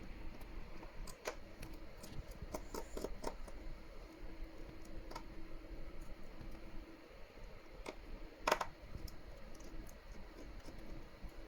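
Scattered small clicks and taps of a precision screwdriver and tiny screws as the screws are taken out of a smartphone's mid frame and set down. One click about eight and a half seconds in is louder than the rest, and a faint steady hum runs underneath.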